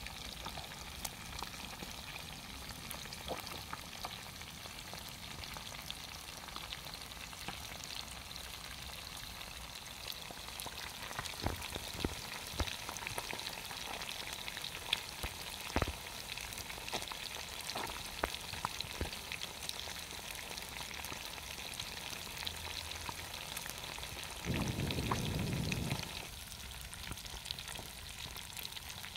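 Fish pieces deep-frying in a pan of hot oil: a steady sizzle with scattered sharp pops and crackles. Near the end a louder low rumble lasts about a second and a half.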